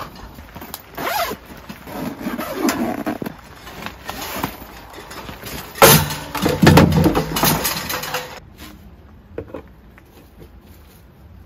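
A tent door zipper pulled open, with rustling of tent fabric and handling noise, the loudest burst about six seconds in.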